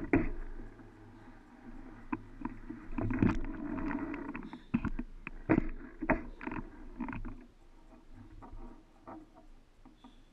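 Mountain bike rolling over a sandy trail: a steady tyre rumble with irregular clicks, knocks and rattles from the bike jolting over bumps, loudest a few seconds in.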